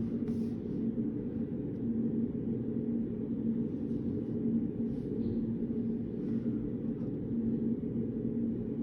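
Steady low hum of a study room's background noise, with a faint steady drone in it. A few faint light ticks come through, around five and six seconds in.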